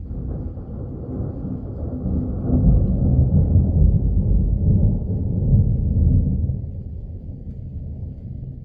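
Rolling thunder: a deep rumble that swells about two and a half seconds in, stays strong for a few seconds, then slowly dies away.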